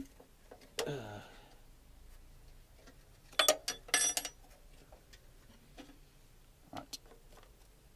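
Metal hand tools clinking and clicking against lawnmower engine parts during reassembly, with a cluster of sharp ringing clinks a little before the middle and a few light ticks later. A brief mutter about a second in.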